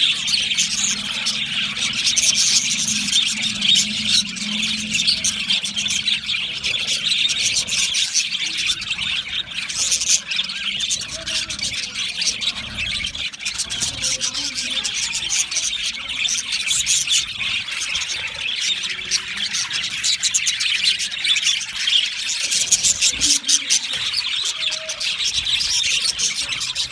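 A flock of budgerigars chattering and chirping continuously, many birds calling at once.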